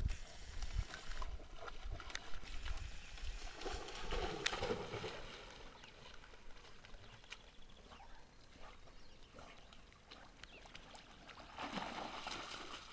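A dog splashing through pond water. The splashing is louder for the first few seconds, quieter while it swims, and louder again near the end as it bounds through the shallows.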